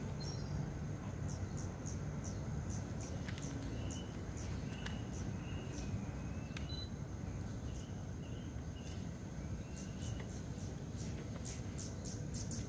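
Outdoor background: a steady low rumble with scattered short bird chirps and faint high clicks throughout.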